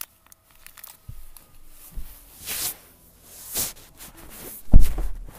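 Rustling and handling noises, with two brief swishes, then a heavy low thump about five seconds in.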